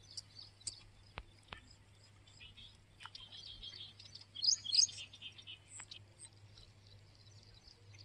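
Birds chirping, with a quick run of high chirps loudest about halfway through.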